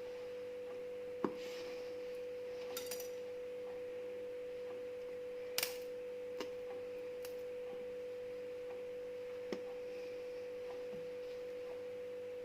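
A steady, even hum on one pitch, with a few faint, brief clicks or taps over it.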